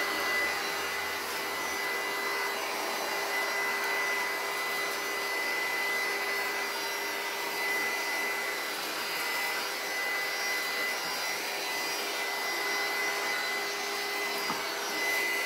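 Handheld electric heat gun blowing steadily while shrinking a plastic shrink-wrap bag: a constant fan rush with a steady high whine.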